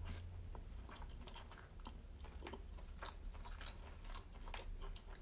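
Faint close-up chewing after a bite of tuna-stuffed squid: a soft bite at the start, then many small irregular mouth clicks.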